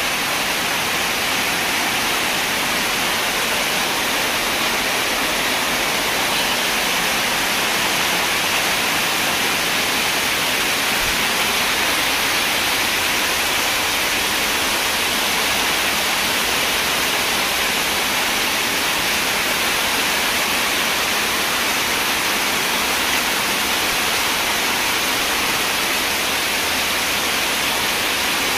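Heavy rain pouring down steadily onto a flooded yard: a dense, even hiss that does not let up.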